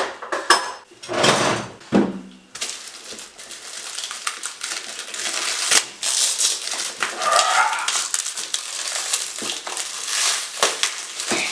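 Black plastic parcel wrapping being torn and pulled off by hand: continuous crinkling and rustling with sharp crackles, starting about two seconds in.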